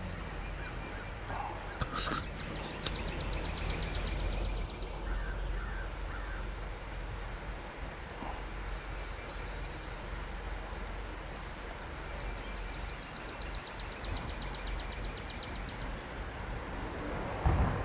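Outdoor background by a creek: a steady low rumble with scattered bird calls. A fast rattling trill comes twice, once a few seconds in and again near the end.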